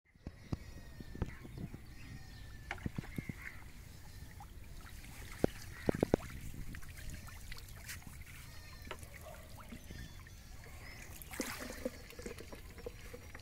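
Water splashing and being poured from a plastic mug onto the still surface of flood water, with a burst of pouring near the end. Short sharp splashes come and go, the loudest few about six seconds in, and birds call repeatedly in the background.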